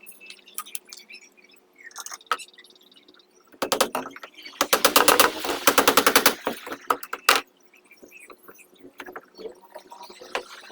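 A rapid rattling clatter: a quick run of sharp knocks, about ten a second, lasting about four seconds from about three and a half seconds in. A few scattered single knocks come before and after it.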